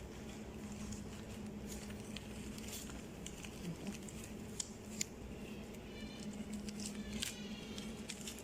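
Scissors snipping and handling dry decorative wheat stalks: scattered small clicks and rustles over a steady low hum.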